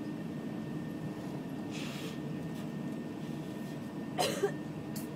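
Steady low drone inside an Airbus A380 cabin while the airliner taxis, with a faint hiss about two seconds in and a short cough-like burst close to the microphone about four seconds in.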